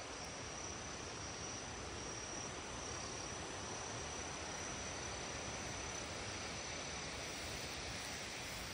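Faint, steady chirring of insects, a thin high continuous tone over an even background hiss.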